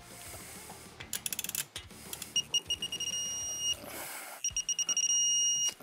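Digital torque wrench tightening caliper mounting bolts to a 125 ft-lb setting. A quick run of ratchet clicks is followed twice by a string of short, high beeps that runs into a steady beep as the set torque is reached.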